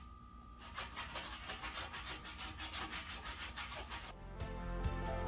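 A cloth rubbing paste wax into a painted wooden board in quick, regular back-and-forth strokes, starting just under a second in. Background music comes in near the end.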